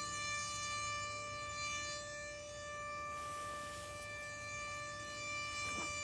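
Super Sirex outdoor warning siren sounding one steady, unwavering tone. The tone does not rise and fall because the siren's rotator is broken, which keeps the horn from turning.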